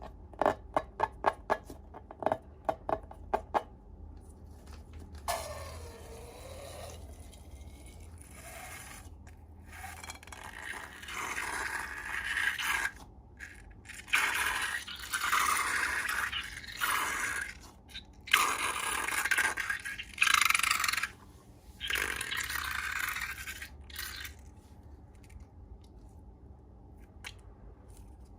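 Slime being worked by hand: a quick run of sharp clicks near the start, then a series of scraping strokes a second or two long.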